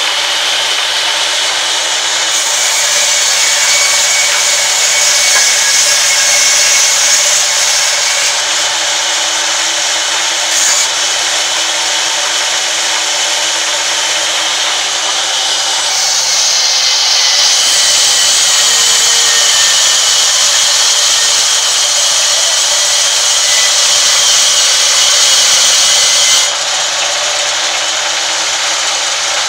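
Sawmill band saw running and ripping a long timber plank, a loud, steady rasping hiss. The hiss gets brighter and louder in two long stretches, from about two to eight seconds in and from about sixteen to twenty-six seconds in.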